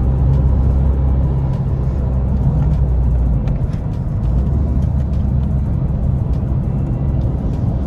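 Škoda Octavia II 1.9 TDI diesel heard from inside the cabin while driving, engine drone and road noise together. The engine note drops about three and a half seconds in and picks up again a second or so later.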